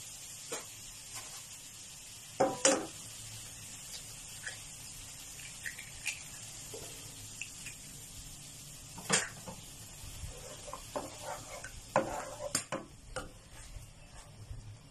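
Eggs frying in oil in a nonstick pan, a steady faint sizzle, broken by a few sharp knocks and taps. Near the end a plastic spatula scrapes and taps in the pan as the eggs are broken up.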